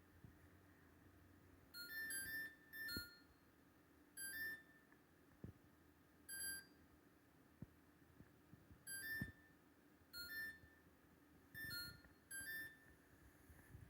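LG LFX25960ST refrigerator's control panel beeping on its own: irregular clusters of short electronic beeps, one to three at a time, alternating between two close pitches, about every one to two seconds.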